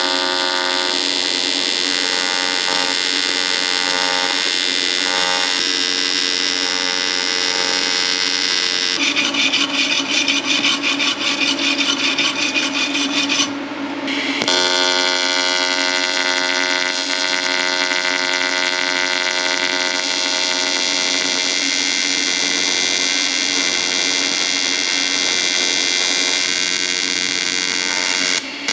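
AC TIG welding arc buzzing steadily on a cracked cast-aluminium oil pan. About 9 s in it takes on a rapid pulsing flutter for a few seconds, then the arc cuts out briefly about 14 s in and strikes again, with another short break near the end.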